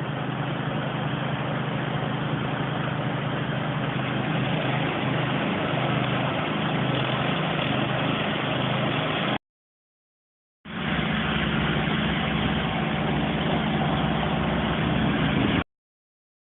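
Hot-water pressure washer running steadily: an engine drone under the hiss of the high-pressure spray on a concrete sidewalk. The sound cuts to dead silence for about a second just past halfway, and again near the end.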